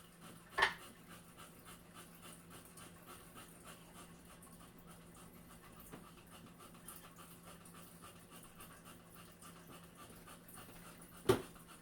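A dog panting steadily and quietly, about three breaths a second, with a short knock about half a second in and another near the end.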